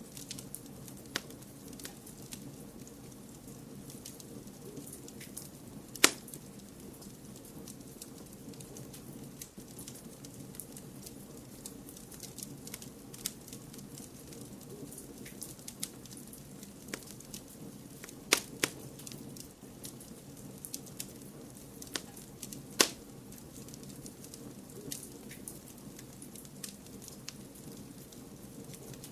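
Fireplace fire crackling over a steady low rush of white noise, with frequent small ticks and a few louder sharp pops, the loudest about six seconds in and again near the middle and two-thirds of the way through.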